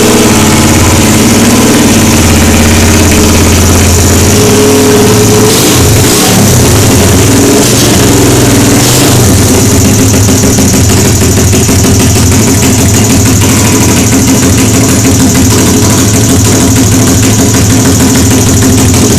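Small motorcycle engine fitted with a Keihin FCR carburetor, blipped up and down for the first several seconds. Then it settles into a steady idle at about nine seconds in.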